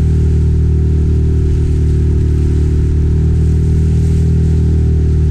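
A 6-horsepower outboard motor running steadily under load in a constant drone, pushing a heavily laden small inflatable boat at displacement speed through rough tidal overfalls.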